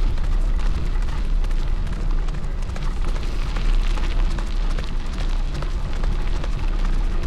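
Steady wind rumble buffeting the microphone, with tyre and trail noise and small rattles from a bike being pulled along by a two-dog team.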